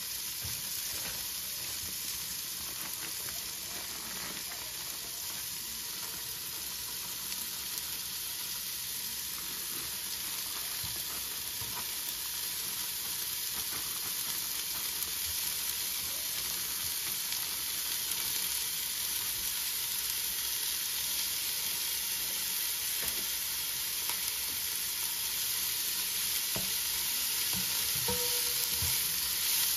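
Shelled broad beans frying in oil in a pot, a steady sizzle that slowly grows louder as chopped herbs go in and steam rises. A few knocks from a spatula stirring the pot come near the end.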